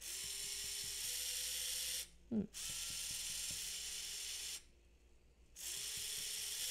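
Two small DC gearmotors of a wheeled robot chassis whirring as a test program drives them, in runs of about two seconds with a short stop about two seconds in and a longer stop of about a second past the middle. Both motors turn the same way at once, because they are mounted mirror-image to each other.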